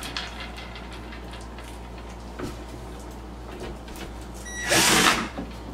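A 12-volt cordless drill/driver runs once, briefly, for about half a second near the end, driving a screw into the top of a flat-pack cube organizer. Before it there are only a few faint handling clicks.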